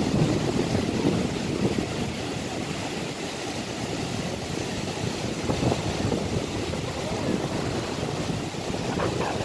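Surf breaking and washing up the shore, with wind blowing across the microphone.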